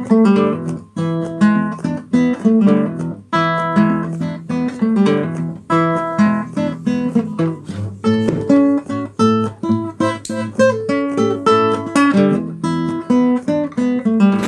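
Background music: solo acoustic guitar playing a blues, a steady run of picked notes and chords.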